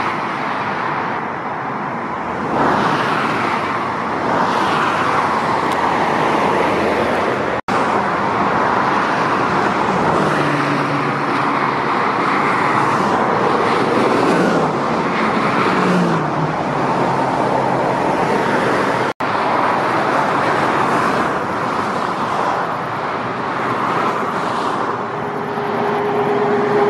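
Motorway traffic: articulated lorries and cars passing at speed, with steady tyre noise and lorry engines droning. The sound briefly drops out twice where the clips are joined.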